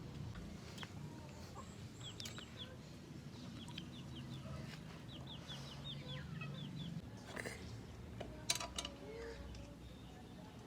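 Birds chirping in short quick runs over a low steady hum that stops about two-thirds of the way through, with a few sharp clicks near the end.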